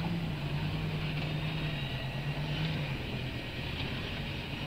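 Pickup truck's engine running at a steady pitch, the truck stuck in deep mud.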